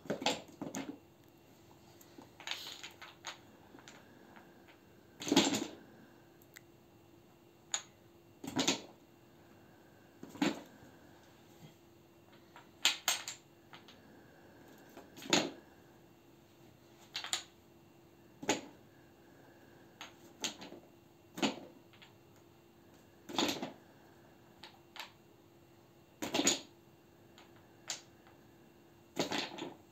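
Wooden Jenga blocks being dropped one by one into their cardboard box, each giving a sharp wooden clack every second or two, some in quick pairs. A faint steady hum runs underneath.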